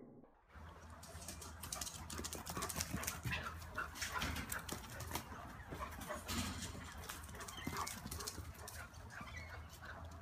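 Two dogs play-fighting: dog sounds mixed with a busy run of short scuffles and clicks, over a steady low hum.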